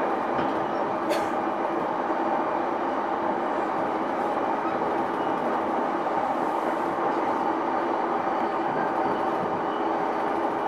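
Cabin running sound of a JR East E233-1000 series electric train's motor car at steady speed: an even rumble of wheels on rail with a motor and gear hum held at one pitch. A single sharp click comes about a second in.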